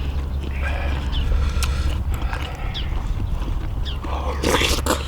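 People eating: chewing with small mouth clicks and smacks over a steady low rumble, and a brief louder rustle or clatter about four and a half seconds in.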